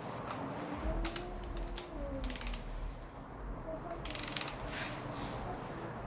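Hand ratchet clicking in short bursts as the oil pump bolts on a 1JZ-GTE engine block are run in, with a few single sharp clicks before the first burst.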